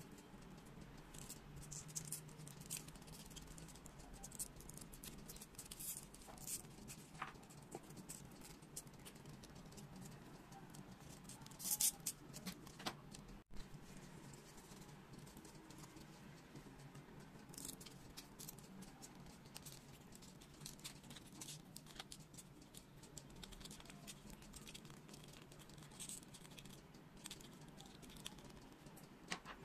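Foam-board 3D puzzle pieces handled and pressed together by hand: faint, irregular small clicks, scrapes and rustles, with a louder cluster of clicks about twelve seconds in.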